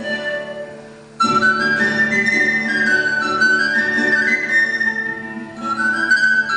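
Pan flute playing a sliding melody over classical guitar accompaniment. The music dips briefly about a second in, then the pan flute comes back in loud.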